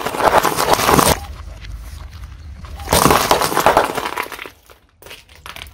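Car tyre rolling over and crushing brittle objects on concrete: two long bursts of crackling and crunching, the first in about the first second, the second from about three to four and a half seconds in.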